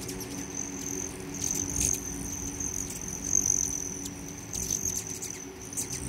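Hummingbirds at feeders: short sharp high chips scattered over a steady, thin, high-pitched trill.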